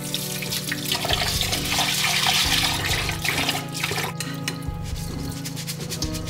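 Thin stream of tap water running into a glass bowl of rice as a hand swirls the grains, with splashing and short clicks in the second half. Background music with held notes plays underneath.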